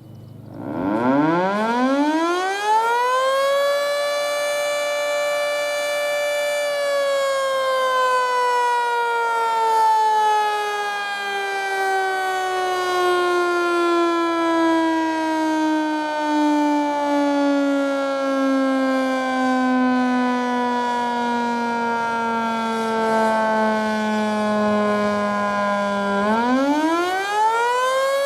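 Federal Signal 2T22 three-phase dual-tone warning siren sounding a fire signal, with its top intake blocked. About a second in it winds up to a steady high chord and holds it for a few seconds. It then winds down slowly over some twenty seconds and winds up again near the end.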